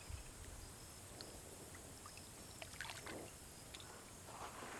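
Faint sloshing and trickling of shallow creek water, with a few light clicks and soft swishes.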